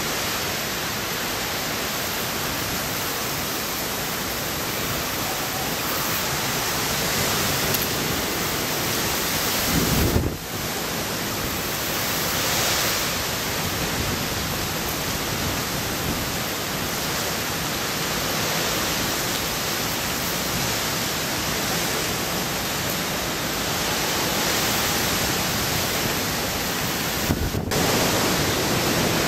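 Heavy typhoon rain and wind, a steady, even downpour noise. About ten seconds in, a gust buffets the microphone with a low surge, and the sound breaks off for an instant near the end.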